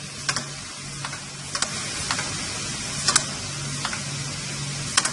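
Two-head aluminium cutting saw machine running with a steady hiss and low hum, and sharp metallic clicks about every one and a half seconds, with smaller ones between.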